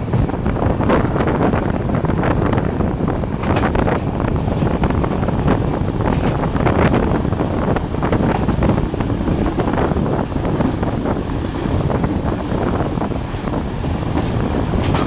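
Passenger train under way, heard from its last car: a steady rumble of wheels rolling on the rails, with wind noise on the microphone.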